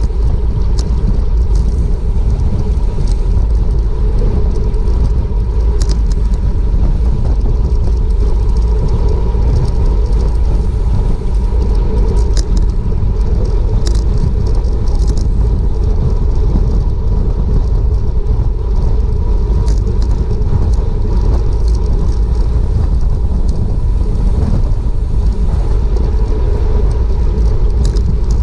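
Steady, loud wind rumble on a GoPro's microphone from a bicycle moving at race speed in a criterium, with a few faint scattered clicks.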